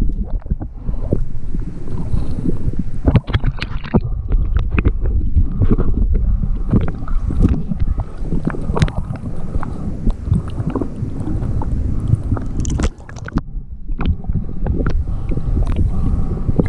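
Underwater recording: muffled rumbling and gurgling of water around the microphone, with frequent sharp clicks and scrapes as a hand rubs growth off a sailboat's hull.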